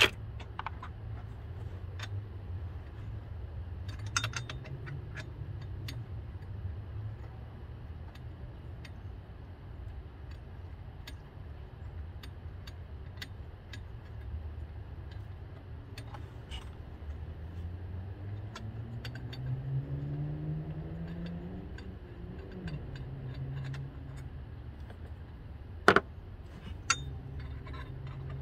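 Scattered sharp metallic clinks of hand tools and parts being worked loose in an engine bay, the loudest two near the end. Under them runs a low vehicle engine rumble that rises in pitch about two-thirds of the way through and then falls back.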